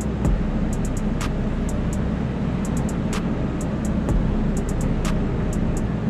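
Off-road vehicle engine running steadily as it drives a dirt trail, with music carrying a light, regular beat over it.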